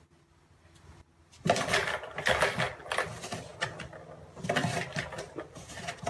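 Plastic balls rattling and clattering around the tracks of a tiered ball-track cat toy as a cat bats at it, in irregular bursts that start about a second and a half in.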